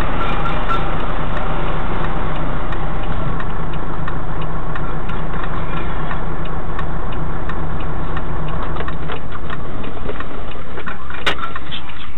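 Volvo FH truck's diesel engine running steadily at a standstill, heard from inside the cab, with scattered light clicks and ticks.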